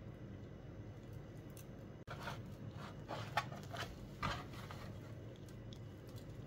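Crusty baked oat-bread rolls handled by hand and set down in a pan, making a short run of crackling and rustling about two seconds in, loudest near the middle. A faint low hum runs underneath.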